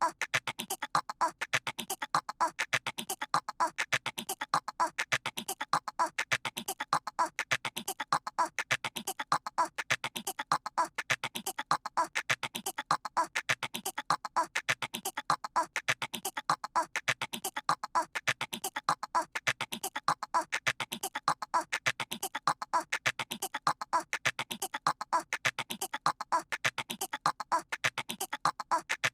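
A cartoon baby's voice imitating a squirrel: a rapid chattering of clicks, repeated over and over in an even loop.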